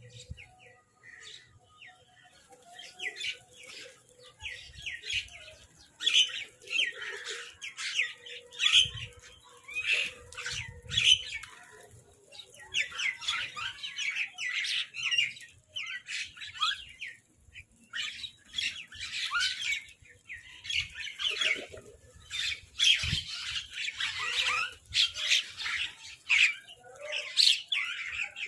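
Crows giving many harsh, overlapping caws and squawks in irregular bouts with short lulls, busier after the first few seconds.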